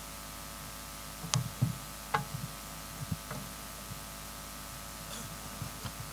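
A handful of scattered knocks and thumps, mostly dull and low with a few sharp clicks, as people sit down in chairs and set things on a table with microphones on it, over a steady electrical hum. Most of the knocks come in the first half, with a few more near the end.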